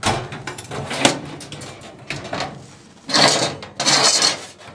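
Steel tool cabinet drawers being shut and slid open on their runners: sharp metal knocks in the first second, then a longer sliding rattle about three seconds in.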